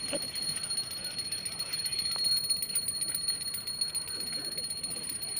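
Hand bell rung rapidly and continuously, a steady high ringing, as is done during a Hindu aarti offering.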